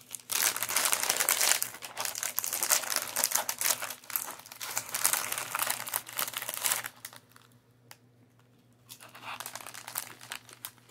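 Foil crisp packet crinkling as it is handled and a hand reaches in for crisps: a long stretch of dense crackling for about seven seconds, a short lull, then more crinkling near the end.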